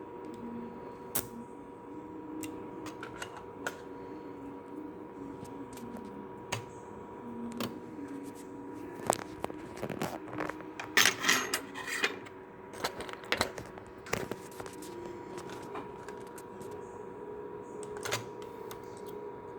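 Slim PlayStation 2's laser lens sled running forward past its stopping point and clicking again and again, irregularly, with a dense run of clicks near the middle, over a steady electrical hum and a faint wavering whir. The sled fault keeps the drive from reading discs.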